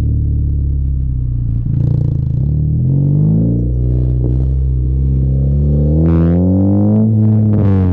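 Honda Civic with an Invidia cat-back exhaust accelerating under load, the engine note rising slowly in pitch for several seconds and then dropping suddenly near the end, with short rushes of hiss in the last two seconds.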